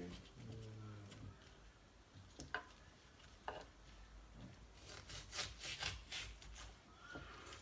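Knife cutting onion on a cutting board: a few separate cuts, then a quick run of strokes about five seconds in.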